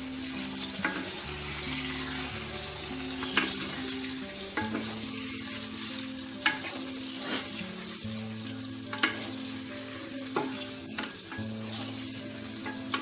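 Sliced onions and capsicum with sauces sizzling in hot oil in a wok while a wooden spatula stirs them, with a sharp click of the spatula against the pan every second or two.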